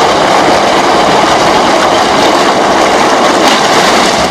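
Heavy stream of water pouring from a tubewell's outlet pipe into a concrete tank: a loud, steady rush and splash of water.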